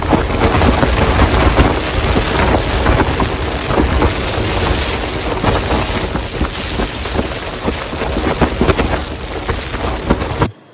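Storm noise: gale-force wind buffeting the microphone with heavy rain beating down, full of fine patter and a deep rumble, cutting off abruptly near the end.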